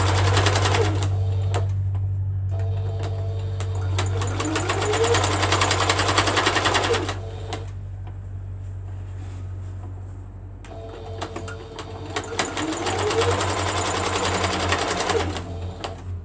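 Sewing machine stitching through a quilt in three runs with short pauses between, its pitch rising as it speeds up in each run, over a steady low hum.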